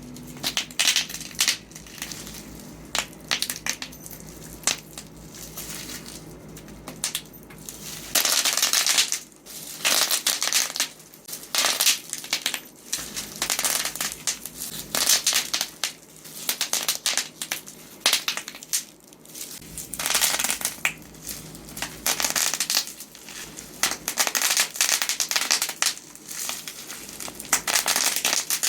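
Bubble wrap being squeezed and popped by hand: irregular sharp pops and crackles with crinkling plastic. The pops come sparsely at first and then in dense flurries from about eight seconds in.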